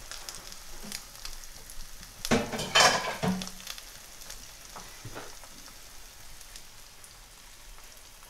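Faint steady crackle of eggs frying in a pan. A little over two seconds in comes a loud clatter lasting about a second, with a brief low tone at its end.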